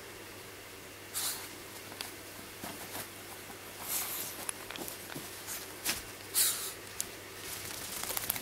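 Small wet dog rubbing and burrowing its face and body into a towel after a bath: several short bursts of fabric rustling, with a few sharp clicks between.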